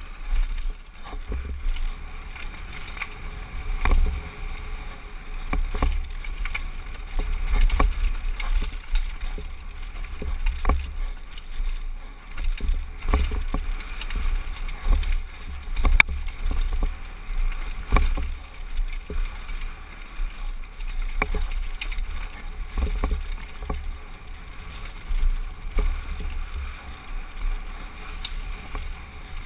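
Downhill mountain bike ridden fast over a rocky trail: a steady wind rumble on the helmet-mounted camera's microphone, with frequent irregular clatters and knocks as the bike hits rocks and bumps.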